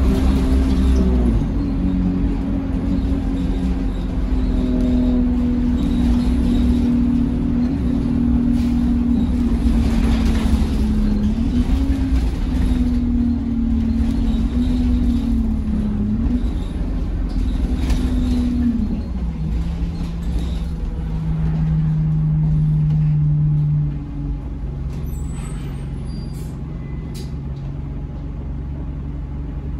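Single-decker bus engine and drivetrain heard from inside the passenger cabin while the bus is under way. A steady drone rises and falls a little with the driving, drops in pitch about two-thirds of the way through as the bus eases off, and turns quieter near the end, with a few faint ticks.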